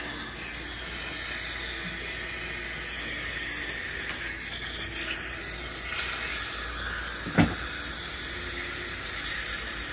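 Dental suction hissing steadily in the patient's mouth during a tooth extraction, with one short sharp click, such as a metal instrument tapping, about seven seconds in.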